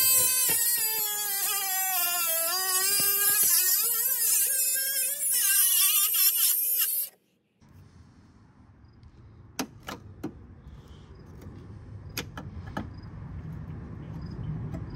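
Milwaukee cordless cut-off tool with an abrasive wheel cutting through a steel bumper mounting bracket. Its high whine drops in pitch as the wheel bites and comes back up, then stops abruptly about seven seconds in. A few light clicks follow.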